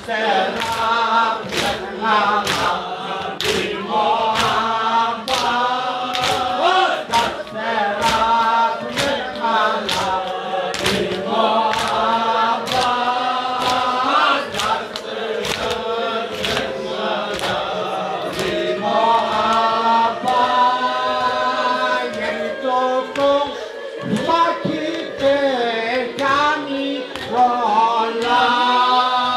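A group of men chanting a mourning lament in unison, their voices rising and falling together. A steady rhythm of sharp slaps from hands beating on chests (matam) keeps time under the chant.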